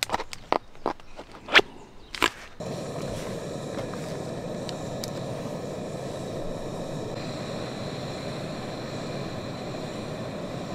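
A few sharp clicks and knocks of camp cooking gear being handled, then a portable gas camp stove burner catching about two and a half seconds in and running with a steady hiss.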